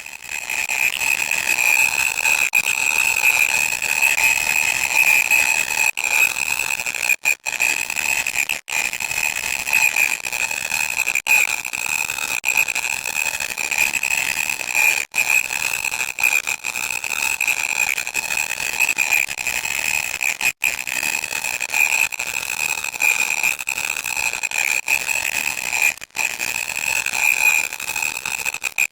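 Loud electronic static: a continuous harsh hiss with a piercing steady whine running through it, cutting out for an instant now and then.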